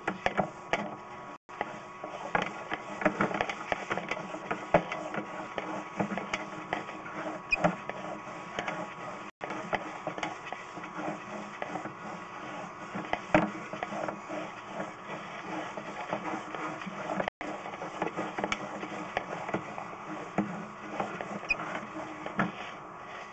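Sewer inspection camera being pushed along a PVC sewer line on its push cable: a steady run of irregular clicks and scraping, with a faint steady electronic hum.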